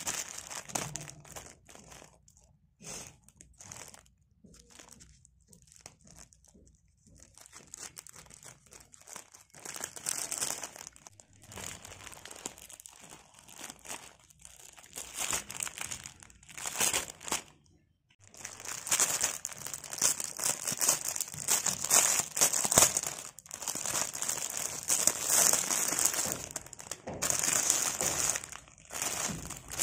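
Plastic packaging crinkling and rustling as hands open a poly courier mailer and a clear cellophane bag of party balloons. The rustling comes in short spells at first, then turns almost continuous and louder about two-thirds of the way through.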